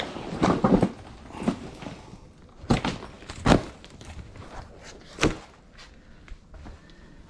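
Irregular knocks and thuds of objects being handled and set down, a few on their own with short pauses between, the loudest about halfway through.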